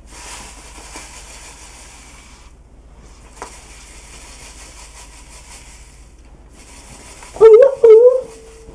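Fine sugar poured from a paper bag into a bowl on a kitchen scale: a soft, steady granular hiss in two long pours with a short break between. About a second before the end a man's voice calls out loudly with a held note.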